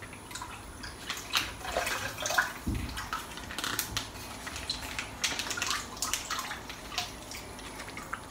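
Plastic packet of mozzarella in brine being torn open and handled close up: crinkling plastic with the packing water sloshing and dripping, in a run of irregular crackles and splashes.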